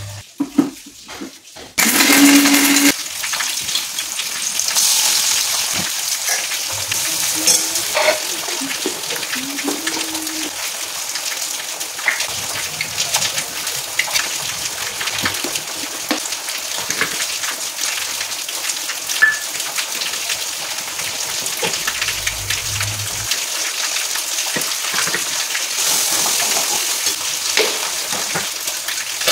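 Food sizzling steadily in hot oil in a pan on the stove, starting about two seconds in, with occasional light clinks.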